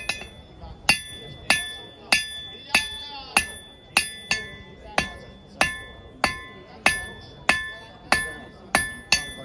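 Blacksmith's hand hammer striking hot iron on an anvil at a steady pace, about three blows every two seconds. Each blow is followed by the bright ring of the anvil.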